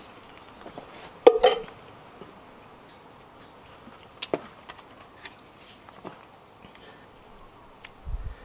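A metal fork clinks and scrapes against a metal bowl a few times, loudest about a second in. A bird gives a short descending high call twice in the background.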